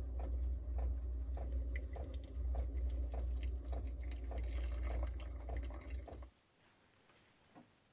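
Hot water poured from a gooseneck kettle into a metal pour-over coffee filter, trickling and dripping, over a low steady hum. It cuts off about six seconds in.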